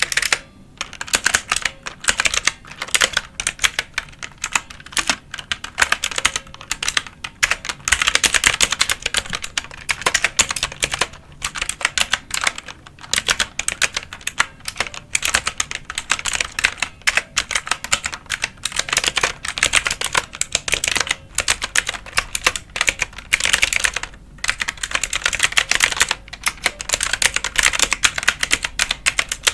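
Fast, continuous typing on a computer keyboard, with rapid key clicks and a few brief pauses.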